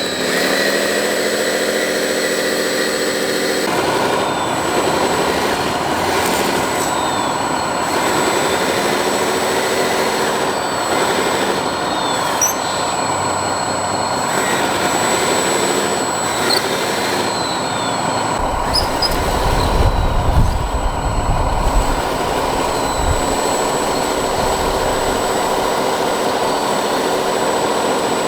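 Radio-controlled scale excavator and dump truck working: electric motors and hydraulic pump whining, the pitch rising and falling again and again as the machines speed up and slow down. A stretch of low rumbling with a few knocks comes between about 18 and 22 seconds in.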